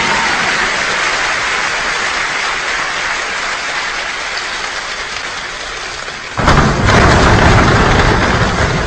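A choir imitating a rainstorm with body percussion, producing a steady rain-like hiss that slowly thins out. About six and a half seconds in it suddenly swells into a loud downpour, with feet stomping on the stage floor for thunder.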